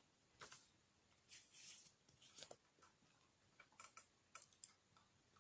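Faint, irregular clicks and taps from computer keyboard and mouse use, with a short rustle about a second and a half in.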